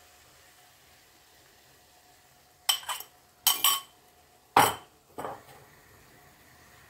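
Glass bowl and metal cutlery clinking against each other: several sharp clinks in a cluster over about two and a half seconds, starting near three seconds in, the loudest about halfway through.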